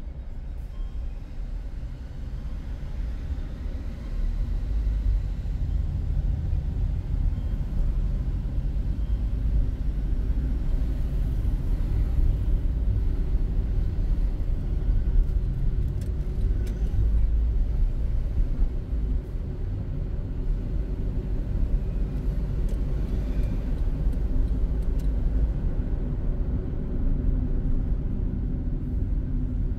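Road noise heard from inside a moving car: a steady low rumble of tyres and engine, growing louder about four seconds in as the car picks up speed.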